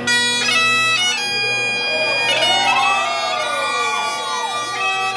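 Great Highland bagpipe playing a tune: the chanter's melody comes in abruptly at the start over the steady drone, which was already sounding.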